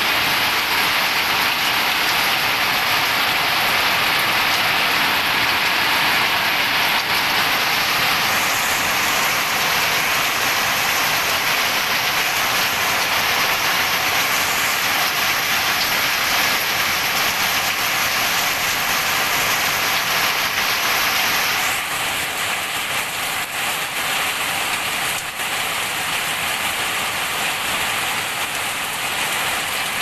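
Heavy rain falling steadily on garden plants, soil and nearby surfaces, a continuous even hiss that eases slightly about two-thirds of the way through.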